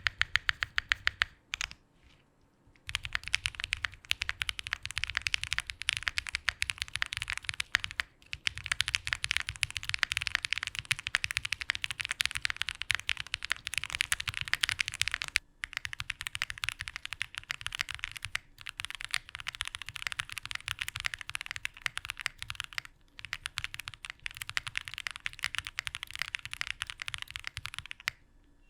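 Fast, continuous typing on a 65% gasket-mount mechanical keyboard with an FR4 plate and GMK keycaps, the key strokes running together in a rapid stream. There is a short lull about two seconds in, and brief pauses further on.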